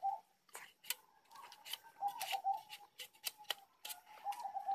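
A large knife cutting and peeling the rind off a stalk of green sugarcane: a run of sharp, irregular cuts and scrapes.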